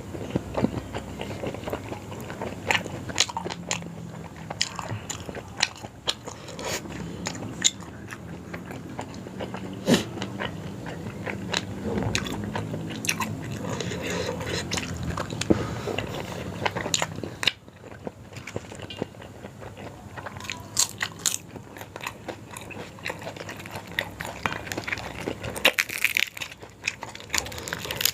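Close-up eating sounds: a person biting and chewing yong tau foo, with many sharp wet mouth clicks.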